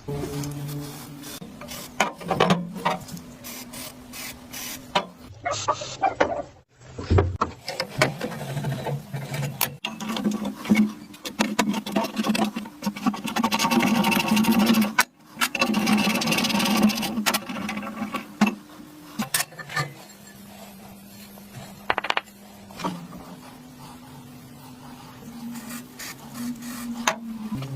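Rasping and scraping of hand work on rusty metal parts, in a string of short cuts, some passages with a steady low hum underneath.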